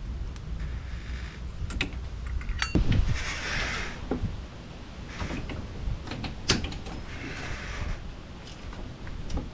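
Hand-tool work on an ATV's front axle assembly: scattered metal knocks and clicks, with two scraping stretches of about a second each.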